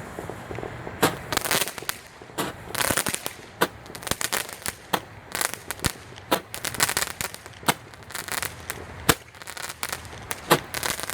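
Roman candle firing: sharp pops come every second or so, some followed by short bursts of crackling.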